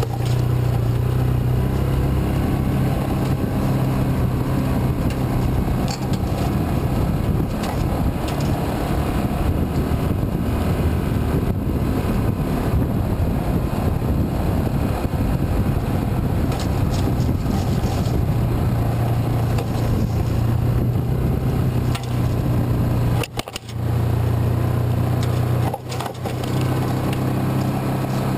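Yamaha Rhino side-by-side's engine running steadily while driving along a trail. The sound drops off briefly twice near the end.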